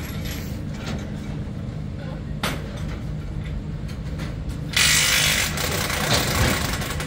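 Machinery running with a steady low rumble while a fairground ride is taken down, with scattered metallic clicks and knocks. There is a sharp knock about two and a half seconds in and a loud hiss lasting about a second near five seconds in.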